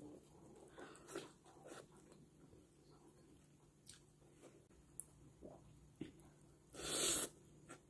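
Close-miked chewing and small wet mouth clicks of a person eating rice and braised pork humba by hand, with a brief, louder burst of noise about seven seconds in.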